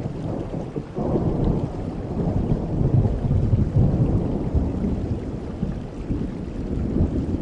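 Rain falling with a long, low roll of thunder that breaks about a second in, swells and then slowly fades.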